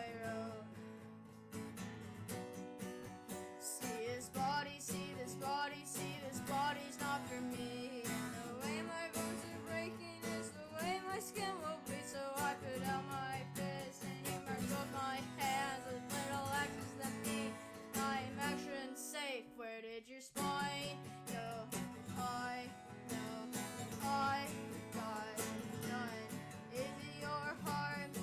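Song with strummed acoustic guitar and a voice singing over it; the low end drops out briefly about two-thirds of the way through.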